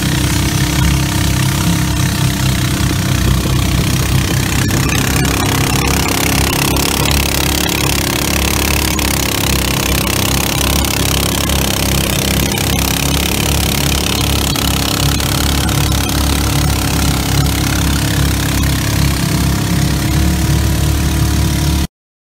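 Narrow wooden tour boat's motor running steadily at cruising speed, with a constant high hiss over the engine drone. It cuts off suddenly near the end.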